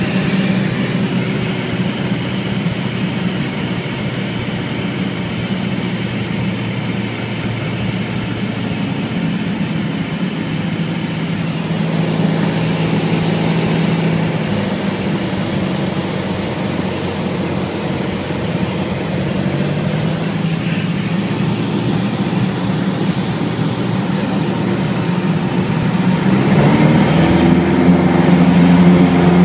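Light aircraft's piston engine and propeller heard from inside the cabin, droning steadily in flight. The note drops slightly about twelve seconds in. Near the end the engine gets louder and its pitch rises as power changes.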